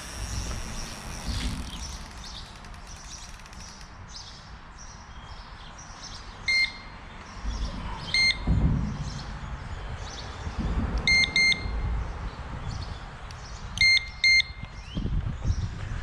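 Electronic carp bite alarm on a rod pod giving short, high-pitched beeps: single beeps about six and eight seconds in, then quick doubles around eleven and fourteen seconds, as the line is drawn back over the alarm. A low rumble of wind on the microphone runs underneath.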